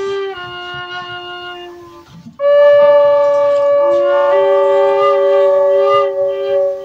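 Music of held wind-instrument notes, several sounding at once. A first phrase steps through a few pitches and fades about two seconds in. A louder sustained chord enters half a second later and holds until near the end.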